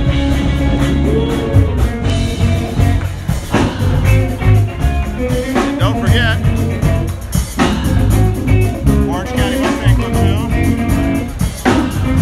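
Live band playing blues-flavoured rock and roll: guitar, bass and drums with a singer.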